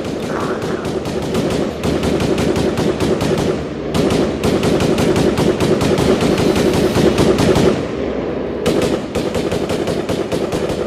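Staged machine-gun fire in long rapid bursts for a battle scene, with short breaks about two, four and eight seconds in.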